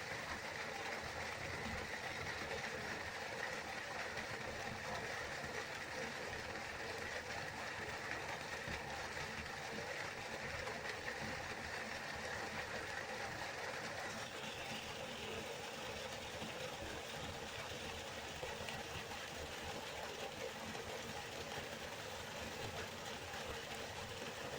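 River water flowing, a steady rushing, with no gaps or distinct events. About halfway through its tone shifts slightly brighter.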